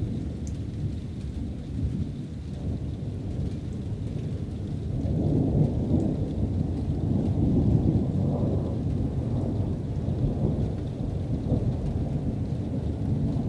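Thunder rumbling from an approaching thunderstorm, swelling about five seconds in and fading back a few seconds later, over steady rain.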